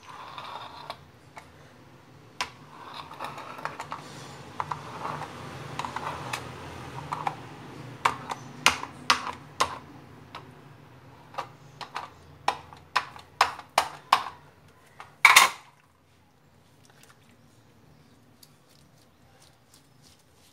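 Hands working a thin sheet of oiled msemen dough on a granite countertop. A soft rustling gives way to a run of sharp sticky clicks and taps, about two a second, with one louder knock about fifteen seconds in.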